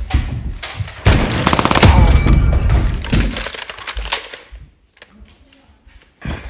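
A rapid burst of gunfire-like shots with a heavy low boom, loudest from about one to three seconds in and dying away by about four seconds.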